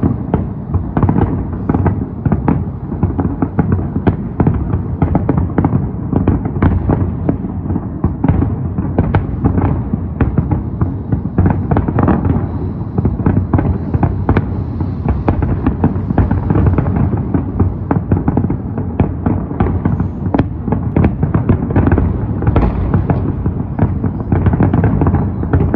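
Fireworks display: a dense, continuous barrage of many bangs and crackles every second, with no pause.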